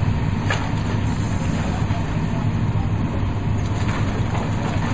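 Diesel engines of tracked demolition excavators running steadily as they pull down a brick building, with a brief crack of falling brick and debris about half a second in and again near the end.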